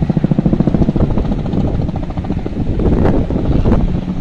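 A small helicopter flying low and close by, its main rotor beating in a rapid, steady throb.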